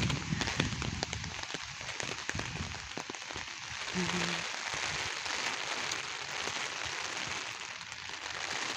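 Heavy rain falling steadily: a dense hiss with many close drops ticking. A low rumble fades out in the first couple of seconds, and a brief low tone sounds about four seconds in.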